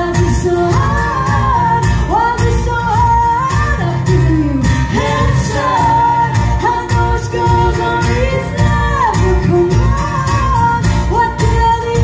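Live band music: a woman singing lead over strummed acoustic guitar and electric guitars.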